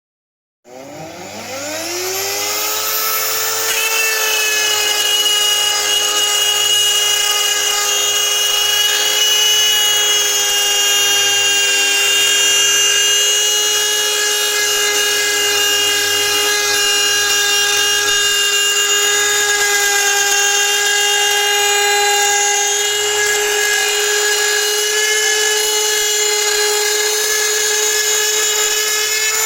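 Parkside PSFS 250 A1 milling machine's motor starting about a second in, rising in pitch for about three seconds, then running steadily at speed with a high whine.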